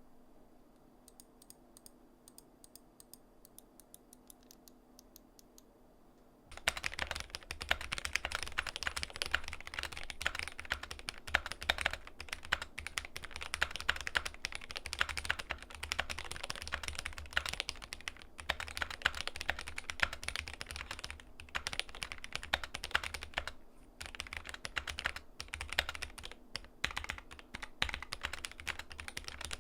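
Glorious GMMK Pro mechanical keyboard being typed on: faint, evenly spaced keystrokes at first, then fast continuous typing from about six and a half seconds in, with brief pauses.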